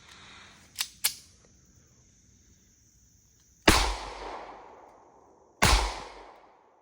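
Two shots from a Ruger LCP .380 ACP pocket pistol, about two seconds apart, each loud and sudden with a long fading echo. Before them come two light sharp clicks.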